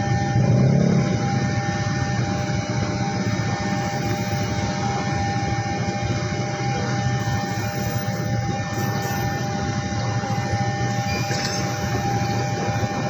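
Stainless-steel passenger train coaches rolling past, a steady rumble of wheels on the rails with a steady high tone running underneath; it is a little louder about half a second in.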